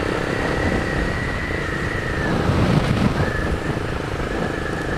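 Honda CB 300 single-cylinder engine running steadily while riding, mixed with wind rumble on the camera microphone. A thin steady high whine rides over it, dropping out for about a second midway.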